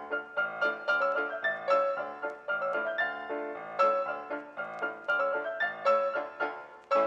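Piano music: a quick run of single struck notes and chords that ring and die away, with no voice.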